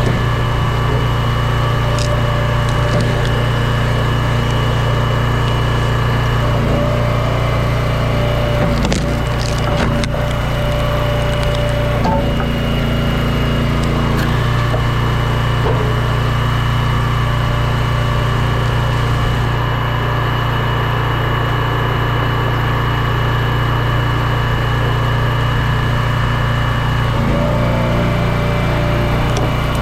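Log splitter running steadily while hickory rounds are split, its note changing as the ram takes and releases load, with the wood cracking and splintering as it gives way.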